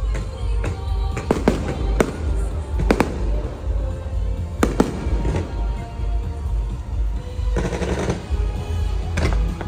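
Fireworks bursting in a series of sharp bangs at uneven intervals over a deep low rumble, with a dense stretch of crackling near the end. Show music plays underneath.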